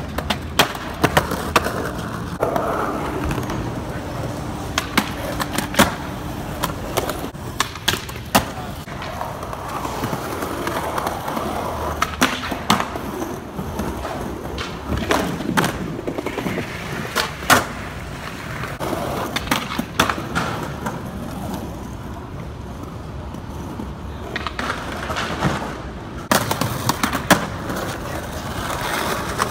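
Skateboard wheels rolling over granite and concrete, broken again and again by the sharp clacks of boards popping and landing.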